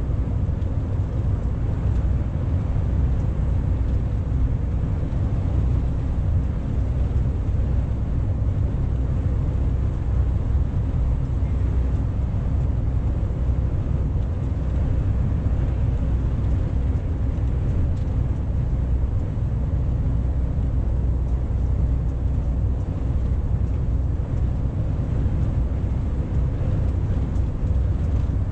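Steady low drone of a MAN truck's engine and road rumble heard inside the cab while cruising at a constant motorway speed, with a few faint steady tones over the rumble.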